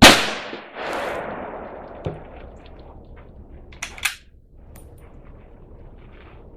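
A single loud gunshot with a fast, sharp crack. About a second in comes a longer rush of noise that fades over the next two seconds, and a few sharp clicks follow.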